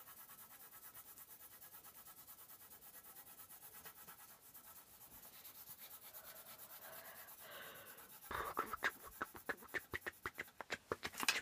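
Drawing strokes scratching on paper as a picture is finished: faint at first, then from about eight seconds in a run of louder, quicker scribbling strokes.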